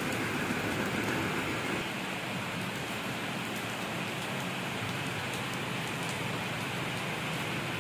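Steady rain falling on wet pavement, an even hiss with a few faint drop ticks.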